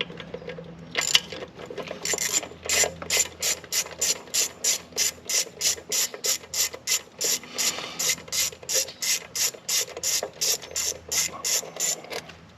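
Socket ratchet with an 8 mm socket clicking in a steady run, about three to four clicks a second, as the bolts of a Fox Body Mustang's idle air control valve are backed out.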